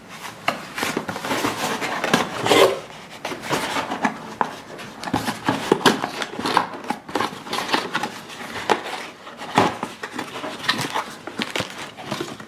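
Packaging and small accessories being handled while unboxing: irregular rustling with many light taps and clicks throughout.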